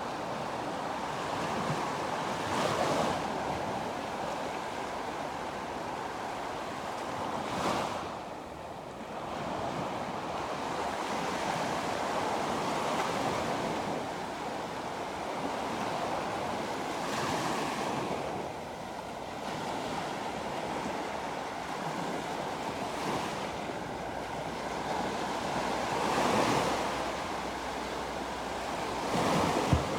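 Sea waves breaking and washing up on the shore in a continuous wash, swelling louder every several seconds as each wave breaks.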